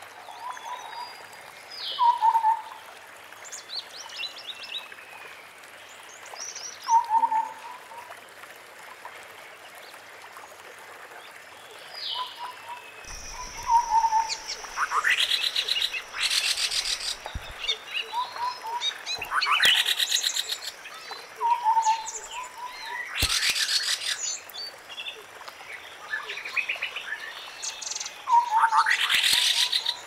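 White-browed scimitar babblers calling: short, low, mellow hooting phrases repeated every few seconds, with loud, harsh rattling chatters breaking in several times from about halfway on.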